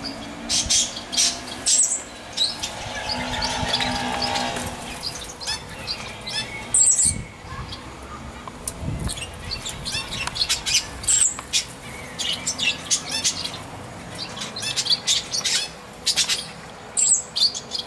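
Small songbirds chirping: many short, high calls repeated in quick succession, with a longer, lower-pitched sound about three seconds in.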